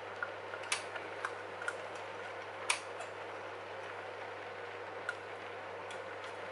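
Scattered small plastic clicks and taps from handling the RC model truck's cab and cable plugs, irregular, with the loudest about two and a half seconds in, over a steady low hum and hiss.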